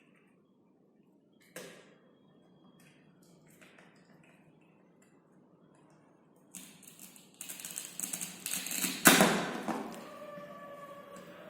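Handling noises: a small click, then a few seconds of clattering and rustling that ends in a sharp knock, followed by faint ringing that dies away.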